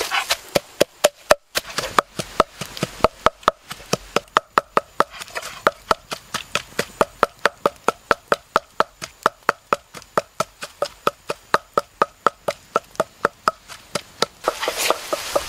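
Wooden pestle pounding red chilies and salt in a wooden mortar: an even run of hollow knocks at about four strokes a second, which stops shortly before the end.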